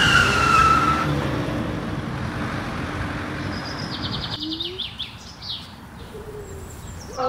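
Steady road traffic noise from passing cars, with a fast series of high bird chirps a few seconds in. The traffic noise drops away suddenly just after the chirps begin, leaving a quieter background.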